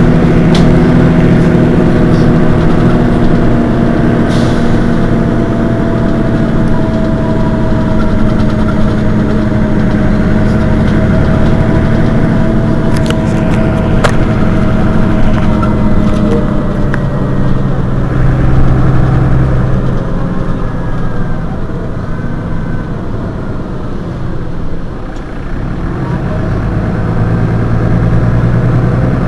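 Mercedes-Benz Citaro city bus idling at a stop, its engine running steadily with a few sharp clicks over it. The low engine note shifts about two-thirds of the way through and again near the end.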